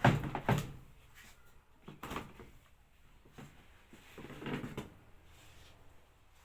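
Plastic auto-detergent dispenser drawer of a Samsung washing machine being handled and pushed into place. Two loud clunks at the start, another knock about two seconds in, then a sliding scrape near the middle.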